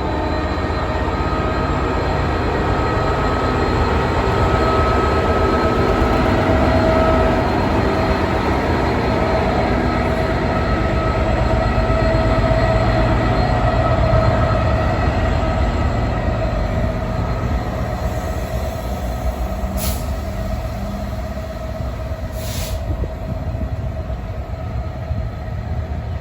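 Class 66 diesel-electric freight locomotive, with its two-stroke V12 diesel engine, running with an engineers' train of wagons, a deep rumble under several steady whining tones. It grows louder for the first half and eases off toward the end, with two short hisses near the end.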